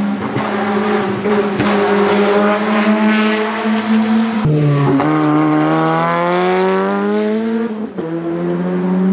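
Ford Sierra RS500 Cosworth Group A touring car at racing speed, its turbocharged four-cylinder engine loud and steady. About four and a half seconds in the note drops sharply and then climbs steadily as the car pulls again, dipping once more near the end.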